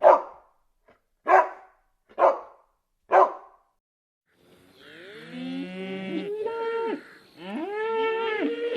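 A dog barks four times, about a second apart, followed by a short pause. Then a cow moos in long drawn-out calls: one from about four and a half seconds in, and another starting near the end.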